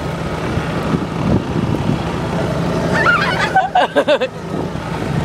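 Golf cart running as it drives along, a steady motor drone with a haze of noise. A voice calls out briefly about three seconds in.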